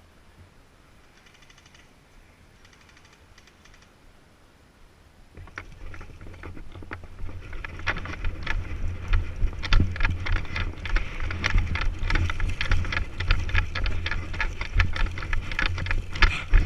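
Two brief faint bursts of rapid ticking, typical of distant airsoft gun fire. From about five seconds in comes loud close rustling and knocking with a low rumble: a player's movement and gear handling right at the head-mounted camera's microphone.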